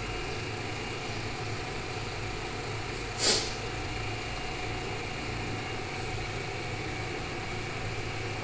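A steady low mechanical hum, like an engine idling, with one short sharp hissing noise about three seconds in.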